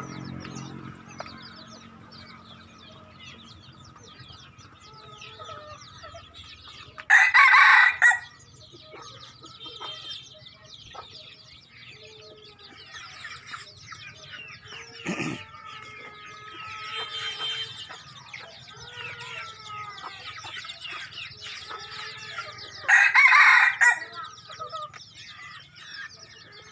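A wild junglefowl rooster crowing twice, each crow about a second long and well apart, over a background of many small birds chirping.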